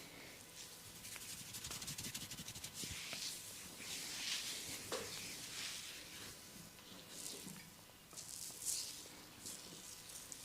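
Massage hands rubbing and scratching over skin and hair: a soft swishing hiss, with a fast run of quick strokes about a second in.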